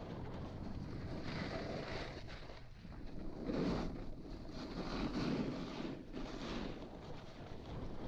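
Snowboard sliding and scraping over firm, chopped-up snow, with wind buffeting the microphone. The rushing noise swells and fades a few times.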